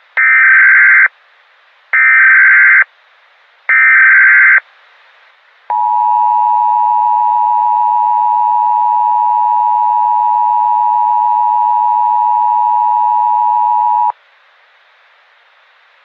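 Emergency Alert System tones announcing an emergency alert: three short bursts of buzzing SAME digital header data, each just under a second, then the steady two-tone EAS attention signal held for about eight seconds and cut off sharply.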